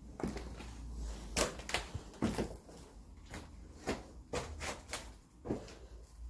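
Footsteps on a floor strewn with broken ceiling tiles, plaster and debris: a string of irregular knocks and crunches, some louder where debris is stepped on.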